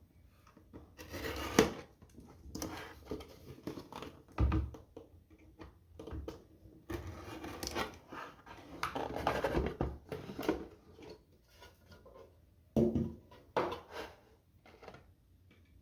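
A slot car's retail box being opened by hand: the seal broken, then scraping, rustling and soft knocks of cardboard and plastic packaging, in irregular bursts with a few sharp clicks.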